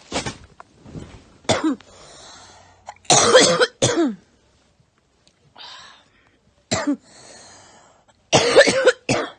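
A young woman coughing in repeated fits, with harsh coughs that come in clusters. The loudest are double coughs about three seconds in and again near the end, with noisy breaths drawn between the fits.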